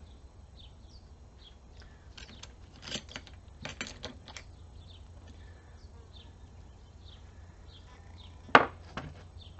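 Metal transfer-case parts clinking and knocking as they are handled during teardown: a few light clicks and taps, then one sharp metal clank near the end.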